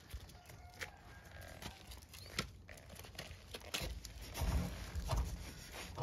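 Rustling and scuffling with light clicks as a puppy scrabbles in dry leaves behind a wooden fence. From about four seconds in come heavier, low-pitched bumps and rubbing as an arm is pushed through the gap between the fence rails.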